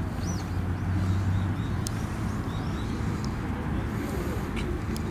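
Outdoor ambience of small birds chirping in short, repeated high notes over a steady low hum of distant traffic and faint voices.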